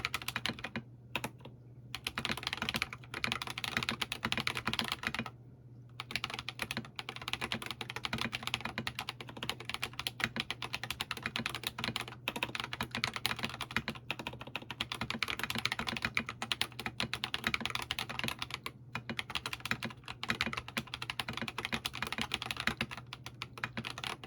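Steady fast typing on a TFG ART mechanical keyboard with lubed Holy Panda tactile switches, PBT SA-profile keycaps and an aluminium plate: a dense run of keystrokes with a few short pauses, the longest about five and a half seconds in. A faint low hum sits underneath.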